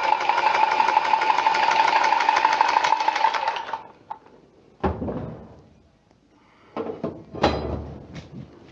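A small electric motor, like that of a handheld power tool, runs at a steady high speed with a buzzing whine for about four seconds and then cuts off. A few short knocks and rattles of handling follow.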